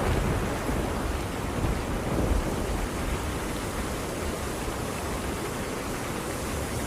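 Steady rain with a low rumble of thunder that dies away over the first few seconds, leaving an even hiss of rain.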